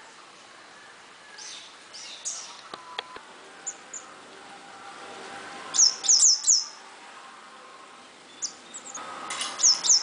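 Purple-rumped sunbird calling with sharp, very high chirps: a few faint ones early, a quick run of four about six seconds in, and another short cluster near the end.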